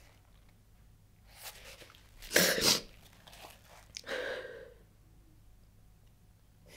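A crying woman's sniffling breaths: a sharp, loud sniff about two and a half seconds in, then a softer breath a little after four seconds.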